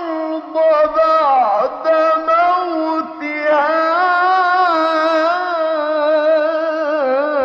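A man's solo voice reciting the Quran in melodic tajweed style, drawing out long ornamented notes that waver up and down, with a brief break about three seconds in.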